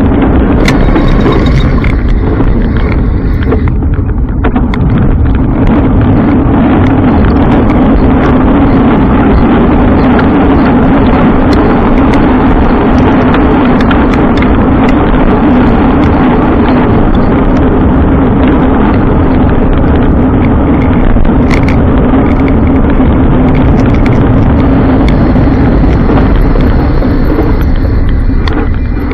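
Steady, loud rush of a bike on the move: road and wind noise with a constant low hum underneath, unbroken until it drops away at the very end.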